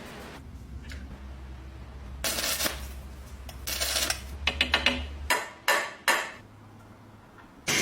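Small metal parts clinking and clicking as they are handled, with a cluster of sharp clicks between about four and six seconds. A low hum underneath stops about five seconds in.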